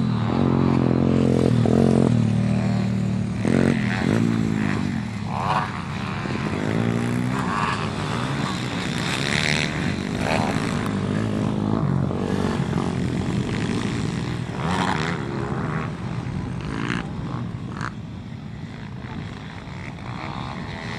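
Several pit bikes racing past on a dirt track, their small single-cylinder engines revving up and down through the gears. Loudest in the first few seconds as the bikes pass close, then a little fainter as they move away.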